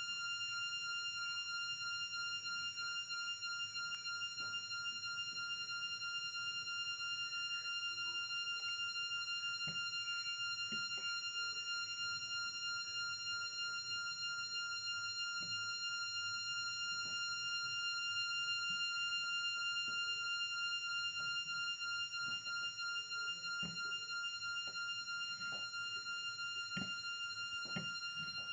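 A steady high-pitched tone, held unchanged throughout, with faint scattered clicks that come a little more often near the end.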